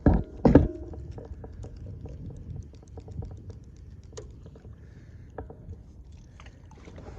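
Two loud knocks in the first second, then scattered small clicks and taps of fishing gear being handled in a small boat, over a low rumble.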